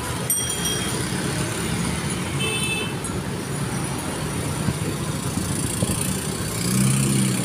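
Street traffic: motorcycles and cars passing steadily. A brief bell ring comes about two and a half seconds in.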